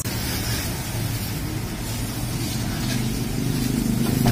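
A jet of water from a car-wash hose spraying over a car body, a steady hiss. A low motor hum grows louder in the last second.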